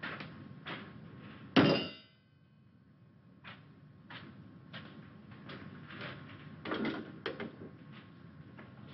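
A single loud metal clang about a second and a half in that rings briefly, then a run of light, uneven knocks, all over a steady hiss.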